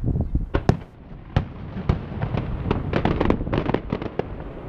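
Distant fireworks display: aerial shells bursting in a series of sharp bangs and crackles, a few single bangs at first, then a dense run of them in the second half.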